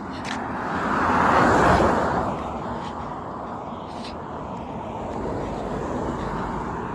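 A car passing on the road: tyre and engine noise swells to a peak about a second and a half in, then eases off into steadier road noise. No horn sounds.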